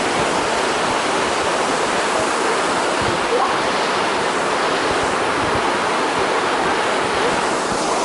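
Steady rush of cascading waterfall water.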